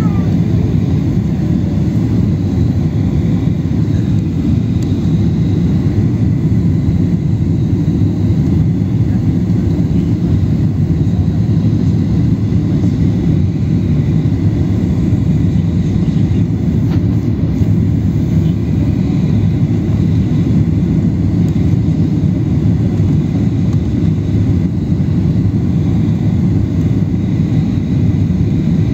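Steady low roar of a Ryanair Boeing 737 heard from inside the passenger cabin: engine and airflow noise as the jet descends on final approach to land.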